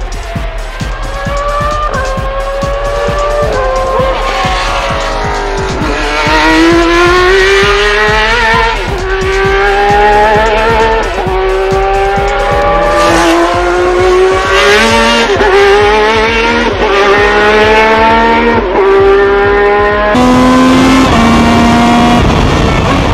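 Ferrari 333 SP's V12 racing engine at high revs heard onboard, its pitch climbing and dropping back sharply again and again as it shifts up through the gears, with a few deeper dips where it falls back and climbs again; it runs at a lower, steadier pitch near the end.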